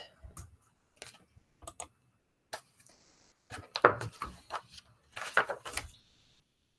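Handling of a picture book: scattered light taps and clicks, with two louder clusters of knocks and paper noise past the middle, as the pages are turned to the start of the story.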